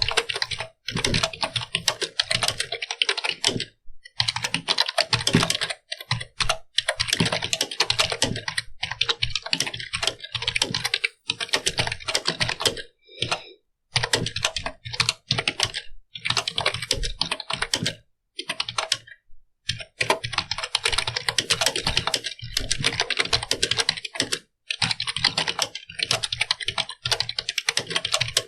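Computer keyboard being typed on: fast runs of keystroke clicks, broken every few seconds by brief pauses.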